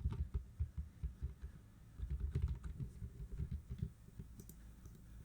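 Computer keyboard typing: a quick run of key clicks, in two spells, thinning out to a few taps after about four seconds.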